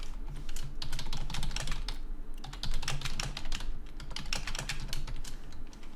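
Computer keyboard typing in quick runs of keystrokes, with a short pause a little past two seconds in.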